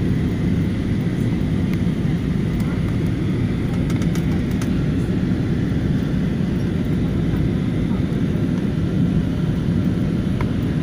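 Steady low rumble of a jet airliner's cabin during descent, engine and airflow noise heard from inside the cabin, with a few faint clicks.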